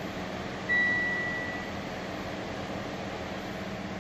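Dashboard warning chime of a Mitsubishi Lancer Evolution X: a single high electronic beep about a second in that fades over about a second, over a steady low hum. The chime sounds with the service warnings the car throws while its ECU is being read and flashed.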